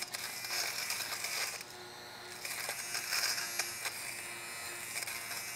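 A battery-powered Philips GC026/80 fabric shaver (lint remover) running over a knitted hat with its attachment taken off, its motor buzzing as the blades shear off the pills. The buzz dips briefly about two seconds in.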